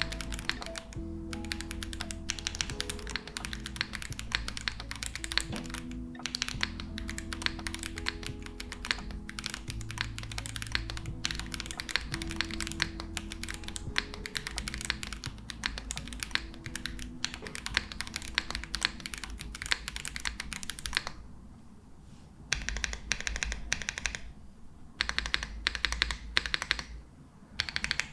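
Fast typing on a Space80 Apollo custom mechanical keyboard with Nezuko switches, a polycarbonate plate and GMK keycaps: a dense, continuous run of key clacks over background music. The music drops out about three quarters of the way in, leaving two separate bursts of typing with short pauses between them.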